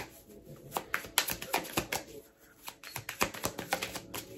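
Tarot cards being shuffled by hand: two flurries of crisp, rapid card clicks, the second starting about three seconds in.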